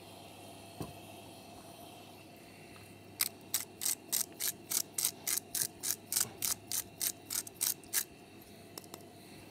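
Hand-turned spice mill grinding seasoning over a bowl: a run of about twenty short, crackling twists, about four a second, starting about three seconds in and stopping about five seconds later.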